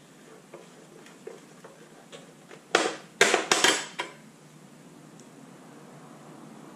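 Small metal hardware clinking: the loosened nut and bobbin knocking together in the hands as they come off a motorcycle's rear indicator mount. A few faint ticks, then about three seconds in a quick run of sharp clinks lasting about a second.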